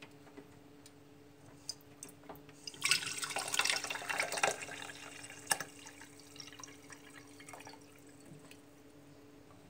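Water from a boiler's drain hose running out of a small lever ball valve into a glass jar, heaviest for a second or two after about three seconds in, then thinning to a trickle. This is the heating circuit being drained to bring the pressure to zero. A faint steady hum sits underneath.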